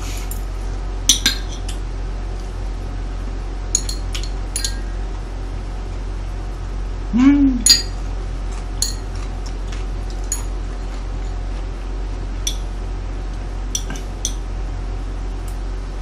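Metal cutlery clinking on plates and side-dish bowls in light, scattered clicks, over a steady low hum. A short hummed voice sound comes about seven seconds in.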